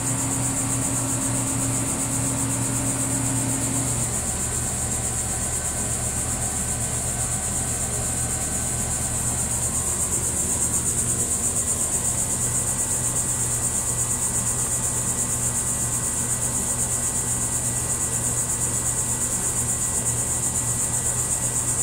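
Steady high-pitched insect chorus, a continuous trilling drone that does not change, with a faint low hum underneath.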